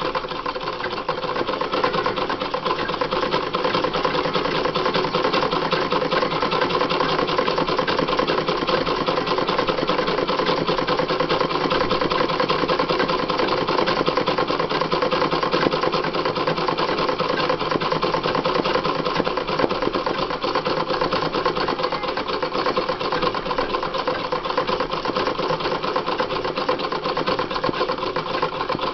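Treadle sewing machine running fast and steadily without a break, stitching free-motion embroidery as the hooped fabric is guided by hand under the needle.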